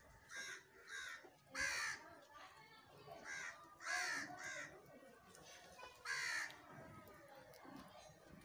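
Crows cawing, about seven short harsh calls, some in quick pairs, with gaps between them.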